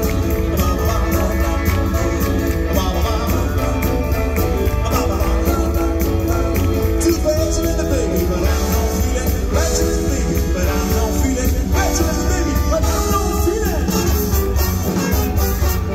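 Live retro swing and rock 'n' roll band playing: electric guitar over a drum kit with cymbals and a steady bass line.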